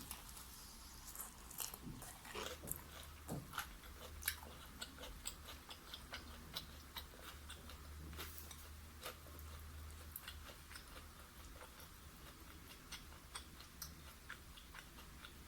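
A person chewing and biting food close to the microphone: many small, irregular crisp clicks and crunches over a low steady hum.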